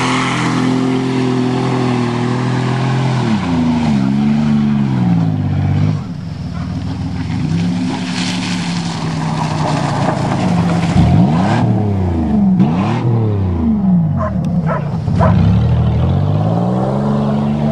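1990 Buick's engine revving hard in the mud, its pitch falling and climbing again and again, fastest in the second half, as the car fights for grip on the muddy track. A few sharp knocks come through near the end.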